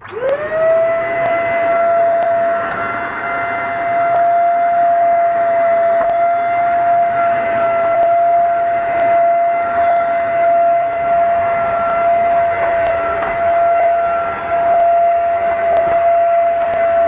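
Alfawise SV-829 700 W handheld vacuum cleaner switched on: its motor spins up in about half a second to a steady high whine and keeps running at one pitch over a rush of air.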